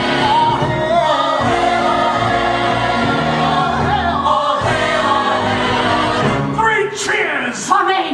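Stage musical ensemble singing in chorus. The held chorus breaks up about seven seconds in into quick sliding swoops.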